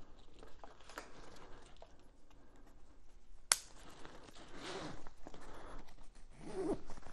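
Handlebar-roll straps being threaded and pulled through the motorcycle's handlebar: faint rustling and scraping, with a single sharp click about three and a half seconds in and longer rubbing, scraping pulls near five seconds and near the end.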